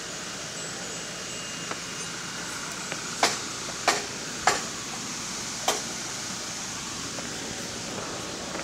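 Steady outdoor hiss with a few sharp clicks or knocks, four loud ones between about three and six seconds in.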